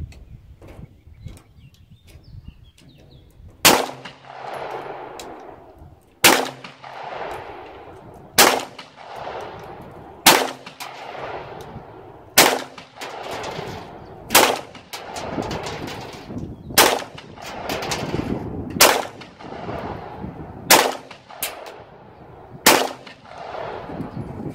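Glock 19 Gen 4 9mm pistol fired in slow, aimed single shots, about ten in all, roughly one every two seconds. Each shot trails off in an echo.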